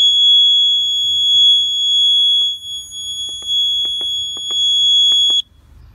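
Husqvarna Automower 105 robotic mower's anti-theft alarm sounding one steady, loud, high-pitched tone, still working on a flat battery after the mower was tilted as if picked up. A run of sharp clicks from the mower's keypad being pressed comes in the second half, and the alarm cuts off suddenly near the end.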